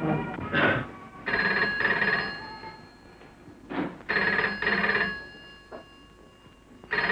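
A black Bakelite dial telephone's bell ringing for an incoming call, in double rings repeated about every three seconds, three times.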